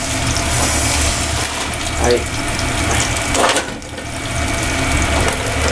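Steady rushing water noise over a low hum, with a couple of light clicks partway through.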